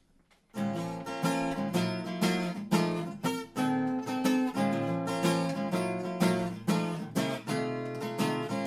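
Acoustic guitar strummed in a steady rhythm, the instrumental intro of a song, starting about half a second in.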